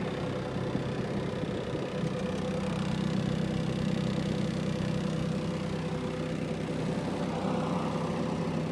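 Caterpillar 289C compact track loader's diesel engine idling steadily.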